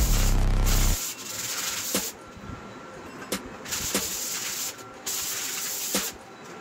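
Music ends about a second in, then a sanding sponge is scrubbed back and forth over a thin metal disc in separate scratchy strokes, with a few sharp clicks between them.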